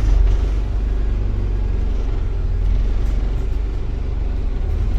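Bus engine and body rumble heard from inside the bus as it drives and turns around, a steady deep rumble.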